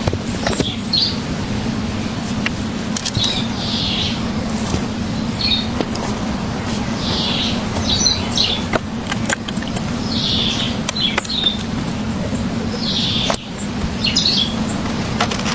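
Birds chirping in short repeated phrases every second or two, with scattered sharp clicks and knocks over a steady low background noise.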